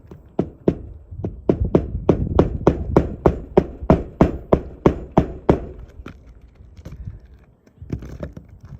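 Hammer driving nails into a roof shingle: a steady run of strikes, about three or four a second, for some five seconds, then a few scattered taps.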